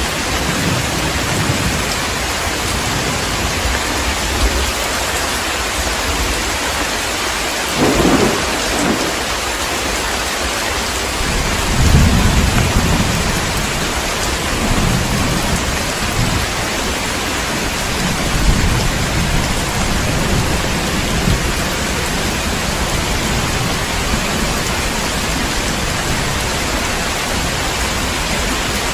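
Heavy, steady rain with thunder: a sharp crack about eight seconds in, then a longer low rumble from about twelve seconds, with fainter rumbles after.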